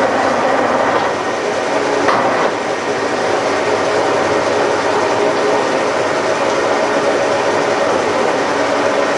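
Milling machine running a boring bar through the drive-mount casting of a Pratt & Whitney lathe: a steady mechanical noise with a faint whine of gears running through it.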